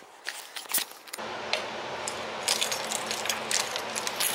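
Keys jangling and clicking at a door lock, a run of small metallic clicks through the second half, over a steady hum that comes in about a second in.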